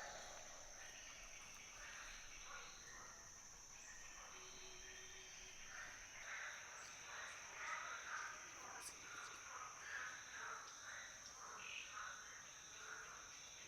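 Steady, high-pitched forest insect drone, with faint short calls repeating about twice a second from roughly halfway through.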